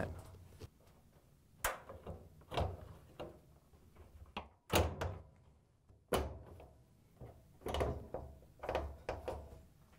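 Sheet-metal knocks and clunks as a clothes dryer's front bulkhead panel is set in place and its tabs are locked into the cabinet: a series of separate thumps, the loudest about five seconds in.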